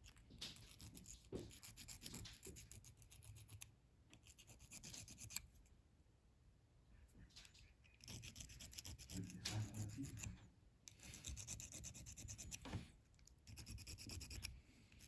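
Faint rasping of a small file on a plastic action-figure joint piece, in several bouts of quick strokes with a pause of a couple of seconds near the middle. The part is being filed down so that a too-tight joint turns freely.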